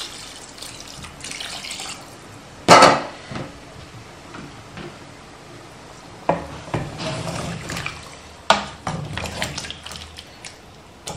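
Water poured from a jug into a stainless steel pot of turkey pieces, with a single loud knock about three seconds in. From about six seconds on, a wooden spoon stirs the meat in the pot, scraping and knocking against the metal several times.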